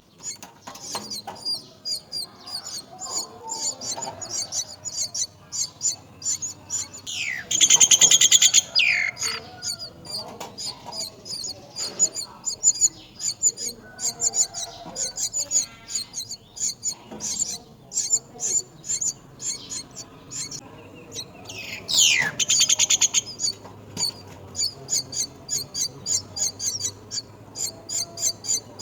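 Nestling birds chirping rapidly and steadily, several high chirps a second. Twice, about a third of the way in and again past the middle, a louder, harsher call with a rising pitch cuts across the chirping.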